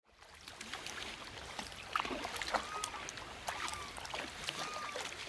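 Kayak paddles dipping into calm lagoon water, with gentle splashes and drips from the blades at each stroke.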